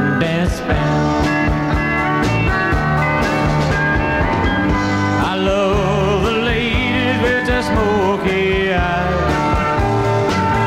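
Country-rock band music with a steady beat. A lead line wavers in pitch around the middle.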